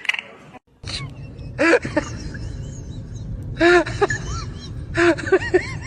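Several short animal calls that rise and fall in pitch, over a steady low rumble.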